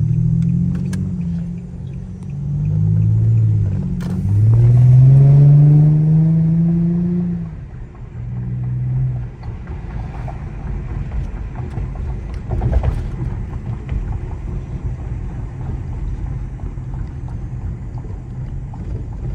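Infiniti G35's 3.5-litre V6 with its exhaust resonator deleted, revving up through a few hard pulls, the longest a steadily rising sweep of several seconds. About eight seconds in the revs drop, and the exhaust settles into a steady low drone.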